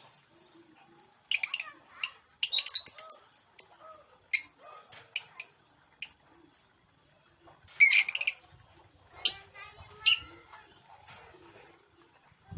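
Lovebird chirping: short bursts of rapid, sharp, high-pitched chirps, the biggest clusters about a second and a half in, around two and a half to three seconds, and near eight seconds, with single chirps and quiet gaps between.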